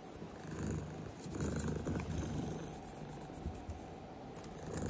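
Domestic cat purring, a steady low rumble, with short high chirps in pairs every second or two.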